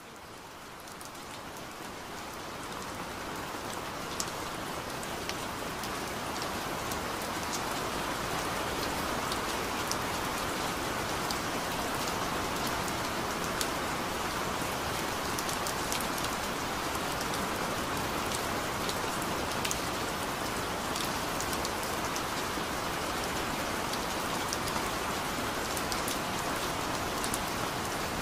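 Rain falling steadily, with scattered sharper drop ticks. It fades in over the first several seconds, then holds an even level.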